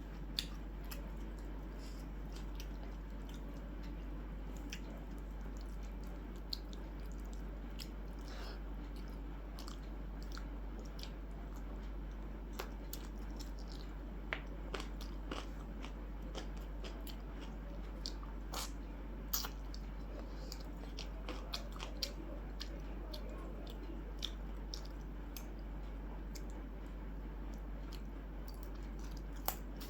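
Close-miked chewing and mouth sounds of someone eating a meal of chicken curry, dal and fried potato and okra, with scattered small smacks and clicks over a steady low hum.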